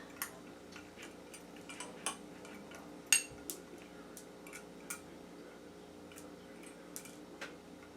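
Small scattered clicks and clinks of beads, findings and tools being handled while making a beaded pendant, the sharpest one about three seconds in, over a faint steady hum.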